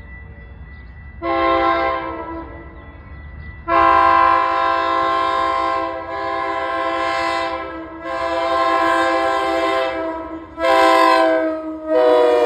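Metra commuter train's multi-tone air horn sounding a string of long blasts, then a short blast and another long one near the end, the grade-crossing warning pattern. Its pitch sags slightly in the last two blasts as the train comes by, over a low rumble from the train.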